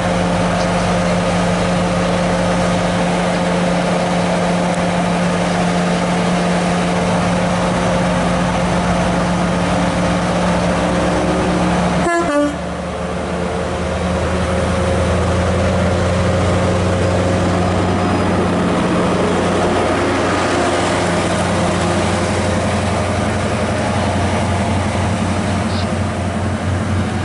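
Diesel engine of a GWR Class 43 HST power car running with a steady drone as the train moves along the platform, with wheel and rail noise. There is a sharp break about twelve seconds in, after which the drone sits lower as the coaches go by.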